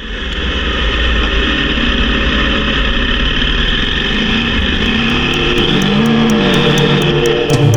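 Motorcycle engine running at a steady speed, its pitch wavering up and down a little, with a low rumble underneath. Electronic music with a regular beat fades in near the end.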